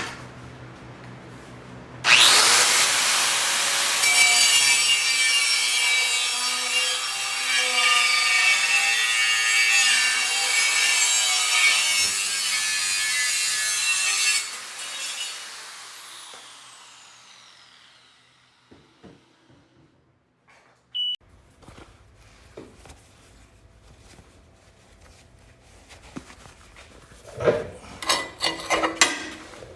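Power tool with an abrasive cut-off wheel cutting a piece of steel plate for about twelve seconds, then released and spinning down with a falling whine. Metal pieces clink and knock near the end.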